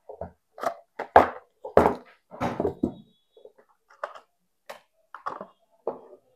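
Cardboard phone packaging handled on a table: the nested inner boxes are opened, pulled apart and set down, giving a string of irregular taps and knocks with some brief scraping.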